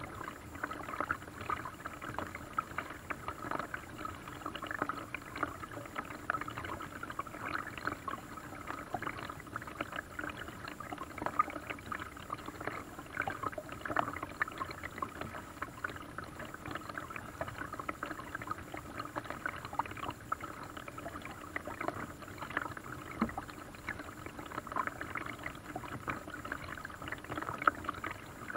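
Lake water lapping and splashing against the hull of a small paddle boat: a steady run of small splashes with no let-up.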